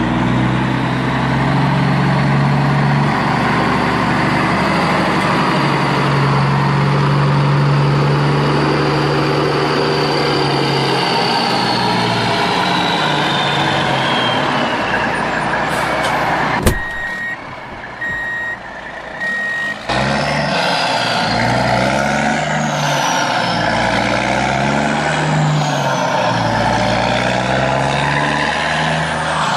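Dubbed-in truck sound effect: an engine running, with a long falling whine about ten seconds in. After a click about two thirds of the way through, the engine drops away for three reversing beeps, then starts up again.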